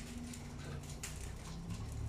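A few light clicks and knocks, the clearest about a second in, from kitchen things being handled, over a low steady hum.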